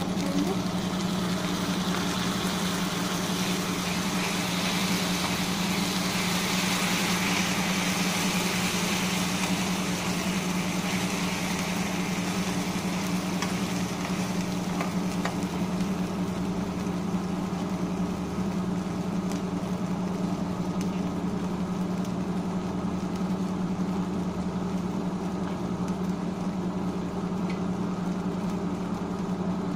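Tomato puree sizzling in hot oil in a non-stick frying pan as it is poured onto fried onions and stirred with a spatula; the sizzle is strongest over the first ten seconds or so and then eases. A steady low mechanical hum runs underneath throughout.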